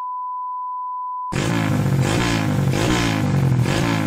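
A steady test-tone beep on one pitch, cut off about a second and a half in by a loud, dense intro sound effect whose low pitch sweeps downward again and again, several times.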